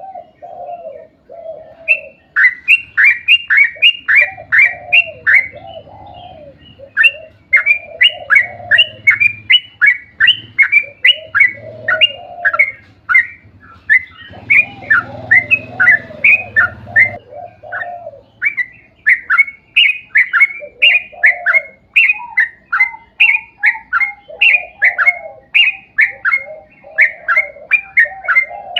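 Yellow-vented bulbul (trucukan) singing a long rapid run of short, sharp repeated notes, about three a second, with lower bubbling phrases between the runs.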